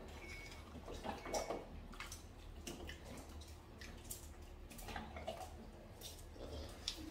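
Mukbang eating sounds: a person gnawing pork backbone from gamjatang by hand, with irregular wet slurps, smacks and squelches of chewing and sucking meat off the bone.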